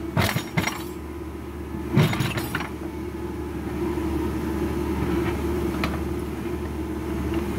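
Backhoe loader's diesel engine running steadily while its rear bucket digs into soil. Sharp clanks and scraping of the bucket against stony ground come right at the start and again about two seconds in.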